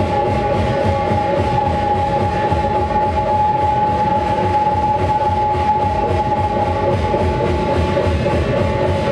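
Live rock band playing loud guitars and drums, with one high note held steadily throughout over a dense, even beat.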